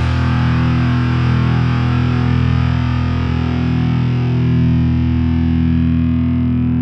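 Background rock music: a distorted electric guitar chord held and ringing out steadily.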